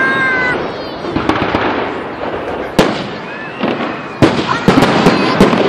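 Fireworks display: aerial shells bursting with sharp bangs, one near the middle and several close together toward the end, over a continuous noisy din from the display.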